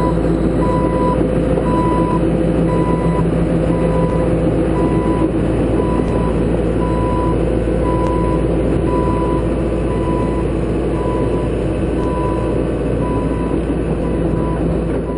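John Deere 160C LC excavator's diesel engine running steadily while its travel alarm beeps about twice a second, the sign that the tracks are being driven.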